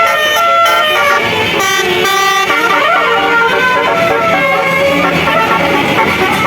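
Bus telolet basuri musical air horns playing a song melody, with several horn tones sounding together and stepping quickly from note to note.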